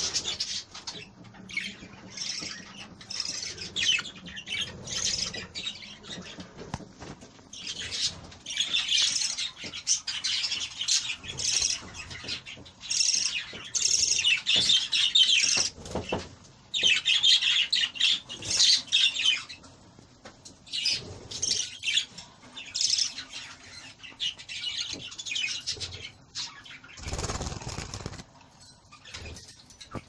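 Several budgerigars chirping and chattering in irregular bursts of rapid high twitters. There is a short rushing noise near the end.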